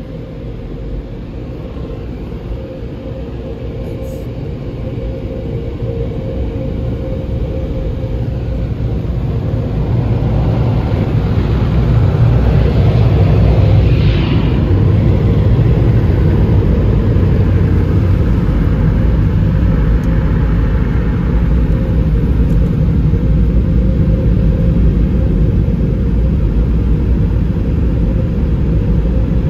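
Mark VII soft-touch in-bay car wash machinery working around the car, heard from inside the car. A deep rumble grows louder over the first ten seconds or so, then holds as a loud, steady roar from the dryer stage, with a steady hum underneath.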